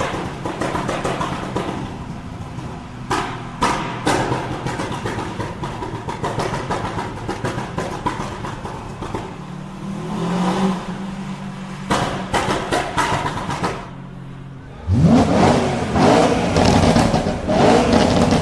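Performance car engine idling with many exhaust pops and crackles, then revved hard about fifteen seconds in, the revs climbing sharply.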